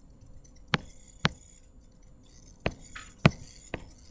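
Five sharp, separate clicks, unevenly spaced, from input on a computer as a PDF document is scrolled and navigated.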